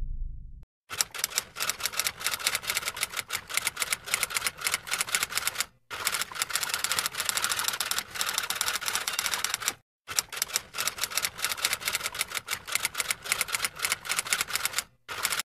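Typewriter keys clacking in fast runs of keystrokes, typing out text. There are four runs, with short breaks about six, ten and fifteen seconds in. A low rumble dies away just before the typing starts.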